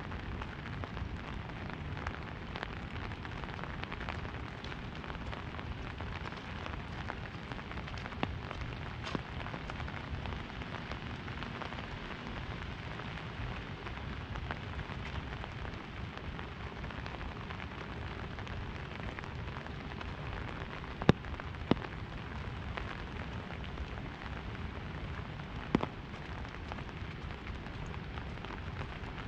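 Rain falling on an umbrella overhead: a steady hiss scattered with the ticks of single drops. There are three sharper, louder drop hits about two-thirds of the way through.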